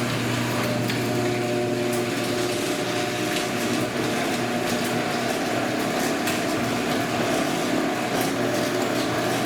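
A small motor-driven machine running at a steady speed, with an even hum and hiss, shutting off abruptly at the end.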